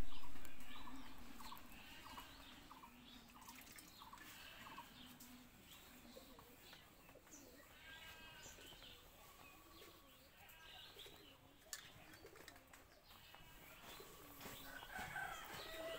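Birds chirping and calling, with a dove cooing in short low repeated notes. A loud rush of noise at the very start fades away over about two seconds.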